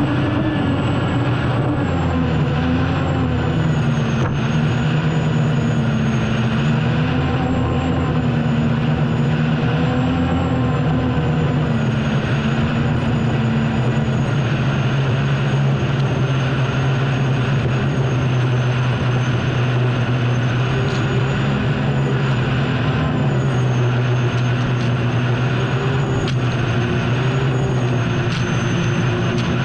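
Unlimited hydroplane's gas turbine engine at racing speed, heard onboard: a loud, steady drone with a high whine that wavers slightly in pitch, over a constant rushing hiss.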